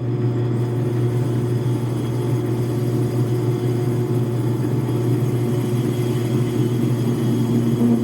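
Logan metal lathe running at a turned-down speed, giving a steady, even hum.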